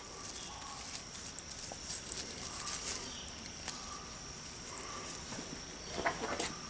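Faint rustling and light clicks from hands handling and twisting the stripped wire ends of an electrical cord, with a slightly louder flurry about six seconds in.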